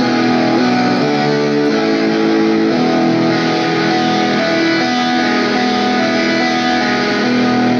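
A smartphone instrument app played through a cheero SOUND GARDEN portable speaker: a run of held, strummed-sounding chords that change every second or two.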